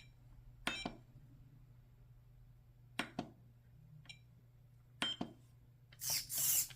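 Several short, high electronic beeps and sharp clicks a second or two apart as buttons on a hobby-grade RC transmitter are pressed to set channel reverse. A rustling noise comes in near the end.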